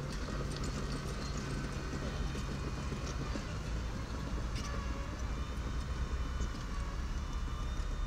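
Diesel engine of a small bulldozer running steadily, with scattered metallic clanks and rattles.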